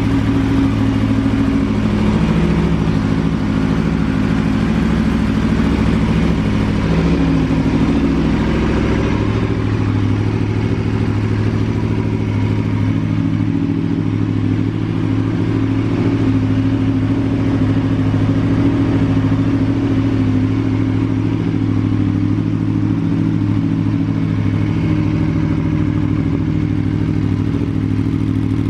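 Aprilia Tuono V4 APRC's V4 engine idling steadily.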